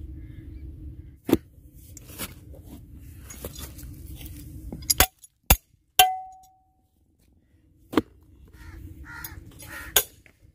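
Sharp metallic clanks of a small steel hand tool striking a steel hand auger ('barma') as caked soil is knocked off its bit: several separate knocks. The loudest comes about six seconds in and rings on briefly with a clear metal tone. A low steady rumble runs under the first half and stops about five seconds in.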